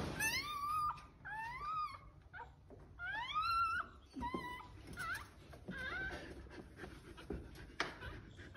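Siberian Husky whimpering: a string of high, whining cries, each rising in pitch and lasting under a second, about one a second, growing fainter in the second half.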